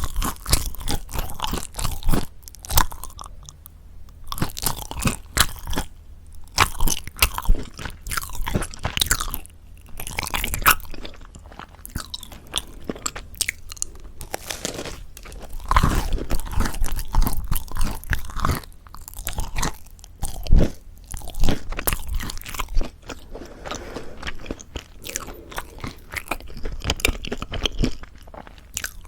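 Close-miked eating of crispy mocha chewy bread: repeated sharp crunches of the crisp crust between bouts of chewing, coming in irregular clusters.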